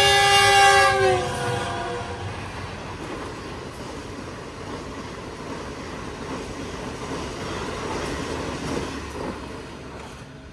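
Diesel locomotive air horn sounding a chord of several tones that drops in pitch and stops about a second in as the locomotive passes. It is followed by the steady running noise of a passenger express's coaches passing at speed, slowly fading.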